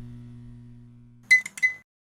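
A low steady hum fades out. About a second and a half in, a quick cluster of high, ringing metallic clinks sounds, a few strokes within half a second.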